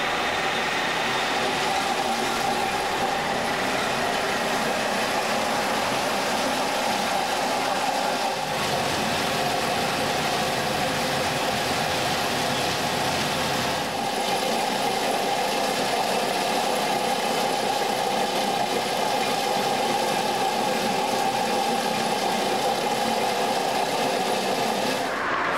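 GMS Road Twister 2000 fine-milling machine running steadily as it mills the top layer off a concrete motorway surface: engine and cutting drum making a loud, even grinding noise.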